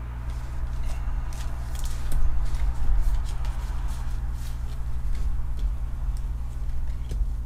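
Trading cards being handled: soft clicks and rustles as cards are slid through the hands and set down on a table, with a few low knocks, over a steady low hum.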